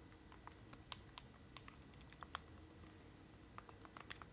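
Faint clicking of calculator buttons being pressed, single sharp key taps at an uneven pace, with a pause of about a second before a few more taps near the end.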